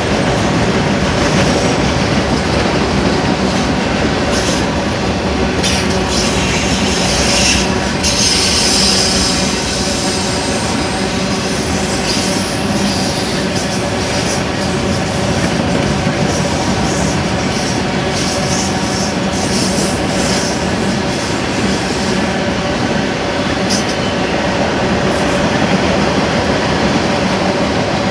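Autorack cars of a BNSF freight train rolling past close by: a steady rumble of steel wheels on the rails with a high wheel squeal, strongest about eight to ten seconds in.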